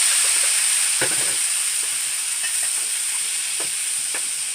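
Tomatoes and green bell peppers sizzling loudly as they hit hot oil and fried onions in a cooking pot, with a few light knocks against the pan; the sizzle eases slowly.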